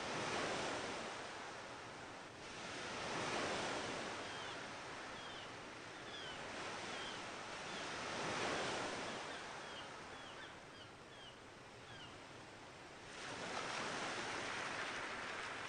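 Sea surf washing in, the noise swelling and easing in slow surges every few seconds.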